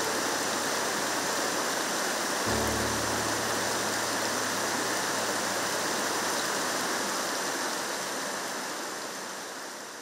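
Steady rushing of mountain stream water, with a low held tone coming in about two and a half seconds in. The sound fades out gradually over the last few seconds.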